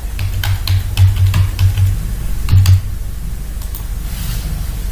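Computer keyboard typing: a quick run of about ten keystrokes, each with a dull low thud, as a mobile phone number is entered.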